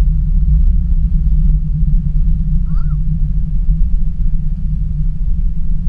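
Steady low rumble heard inside the cabin of an Airbus A380-800 on its landing rollout, the aircraft rolling down the runway just after touchdown.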